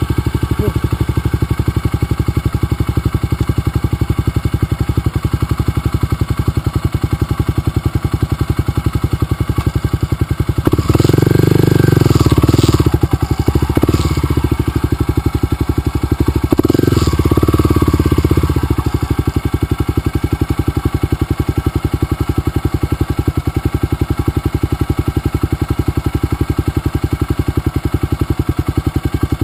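Motorcycle engine idling with a steady beat, revved up twice, about eleven and seventeen seconds in, each time rising and falling back to idle.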